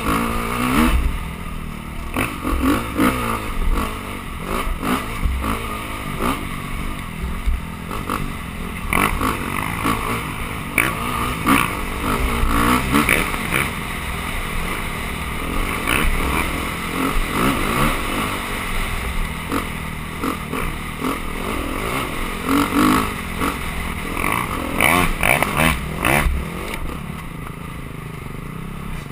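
Dirt bike engine revving up and down as it is ridden over a rough trail, with many short knocks and rattles from the bike jolting over the ground.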